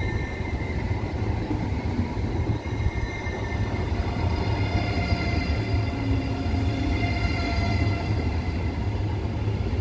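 High-speed electric passenger train passing close by at speed: a steady heavy rumble of wheels on rail with several thin high whining tones over it.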